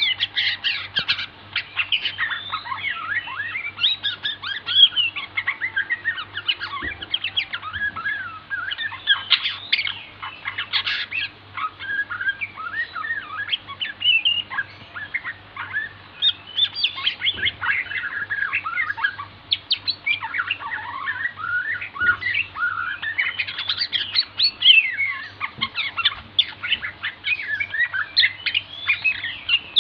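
Borneo white-rumped shama (murai batu) singing a long, unbroken run of quick, varied whistles and chirps, over a faint steady low hum.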